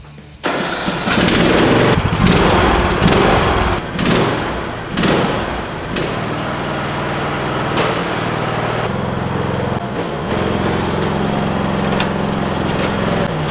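Riding lawn tractor's engine starting and running, loud and uneven for the first few seconds before settling into a steady run; its tone shifts about nine seconds in.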